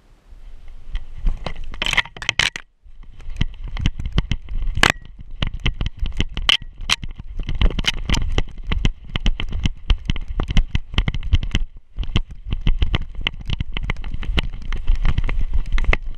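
Rapid, irregular crunching and crackling of a dog's paws running through snow and dry brush, picked up close by a camera strapped to its back. The steps break off briefly twice.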